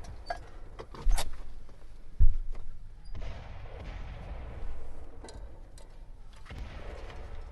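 Battlefield shellfire: two heavy thuds, about one and two seconds in, over a low rumble, with scattered sharp clicks.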